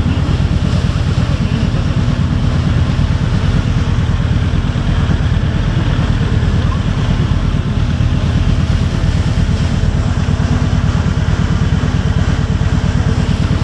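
Kawasaki Voyager 1700's liquid-cooled V-twin engine idling, a steady low rumble of rapid even pulses.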